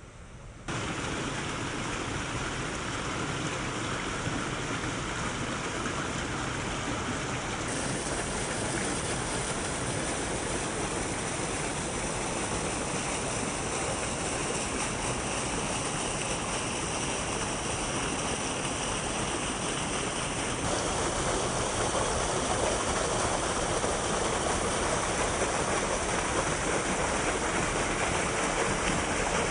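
Steady rush of a waterfall's falling water, a dense even hiss with no rhythm. It jumps louder about a second in and grows louder in steps around eight and twenty seconds in.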